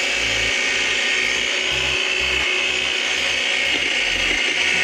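Kobalt 80-volt cordless electric hedge trimmer running steadily, its blades cutting through a leafy hedge.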